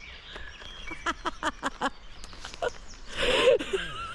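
An animal giving a quick run of short, sharp pitched calls, about five or six a second. A louder rough sound with a falling pitch follows about three seconds in.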